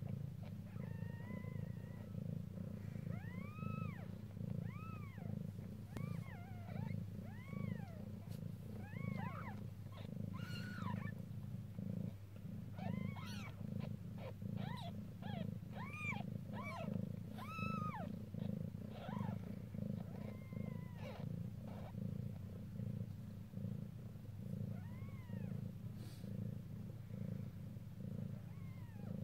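Mother cat purring steadily while her newborn kittens nurse. Over the purr come many short, high squeaks that rise and fall in pitch, most of them in the middle and only a few near the end.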